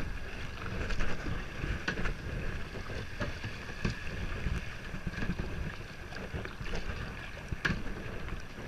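Kayak paddling on a river: the paddle strikes and splashes at intervals of about a second, over a low rumble of wind on the microphone.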